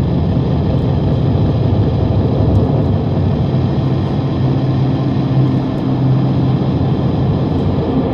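Noise-drone music: a dense, steady low rumbling noise. A low steady hum-like tone comes up out of it about halfway through.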